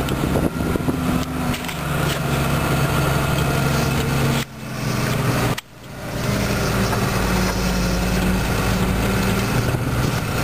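Snowmobile trail groomer's engine running steadily. Its level cuts out briefly twice, about four and a half and six seconds in, and the engine note shifts a little after that.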